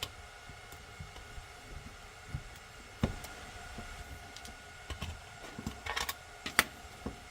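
Scattered small clicks and taps from handling a plastic multimeter and a small Phillips screwdriver while its battery cover screw is undone, the sharpest click about three seconds in and a few more near the end.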